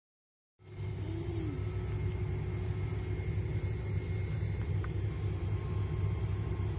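Steady low rumble that starts suddenly about half a second in, with a faint steady high whine above it.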